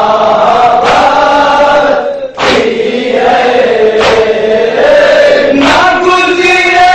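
A group of men chanting a nauha, an Urdu Shia lament, in unison with long held notes. Sharp slaps land about every second and a half in time with the chant, typical of matam chest-beating.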